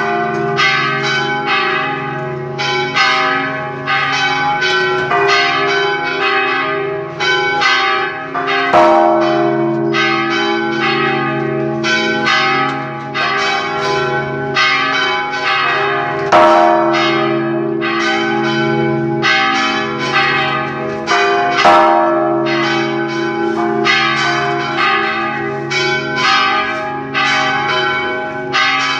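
Church bells pealing: several bells struck in quick succession, about three or four strokes a second, their tones overlapping and ringing on, with a few louder strokes standing out.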